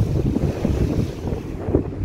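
Wind buffeting the microphone on the deck of a moving ferry: an irregular, gusty low rumble.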